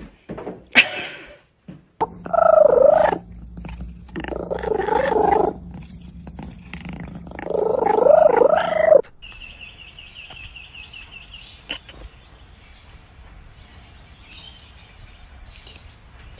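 A cat yowling in three long, wavering calls that cut off abruptly about nine seconds in, followed by a brief rapid high-pitched trill.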